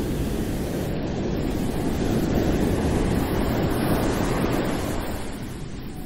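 Ocean waves: a continuous rushing wash of surf that swells to a peak midway and eases off again near the end.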